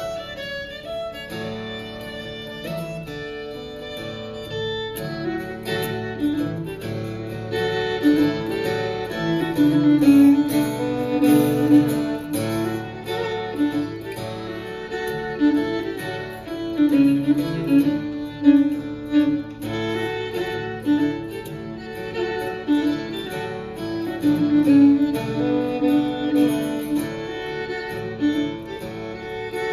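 Fiddle and acoustic guitar playing a contemporary Swedish folk tune, the fiddle carrying the melody over the strummed guitar; the music grows fuller and louder about five seconds in.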